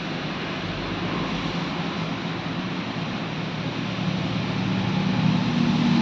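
A steady hiss with a low engine hum that grows louder over the last few seconds.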